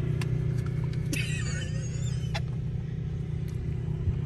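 Pickup truck's engine and road drone heard from inside the cab as it rolls slowly along a dirt lot: a steady low hum with a few light clicks, and a brief gliding squeak about a second in.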